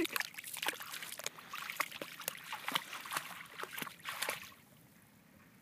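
A dog's paws splashing in shallow water as it wades and paws at the surface: quick, irregular splashes that stop about four and a half seconds in.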